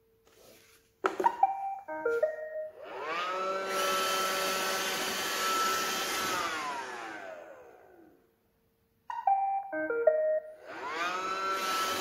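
iRobot Roomba 537 robot vacuum plays its short beeping start-up tune, then its vacuum and brush motors whine up to speed, run steadily for a few seconds and wind down to silence. Near the end the tune plays again and the motors spin up once more.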